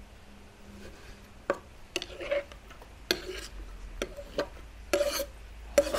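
Kitchen knife slicing tomatoes on a thick wooden cutting board: irregular knocks of the blade on the board, roughly one a second, with slices pushed off into a stainless-steel tray beneath.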